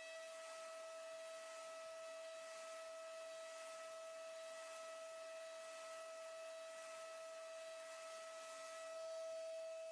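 CNC milling machine cutting metal: a steady high whine from the spindle and end mill, one unchanging pitch with overtones, over a hiss that swells and fades every second or so.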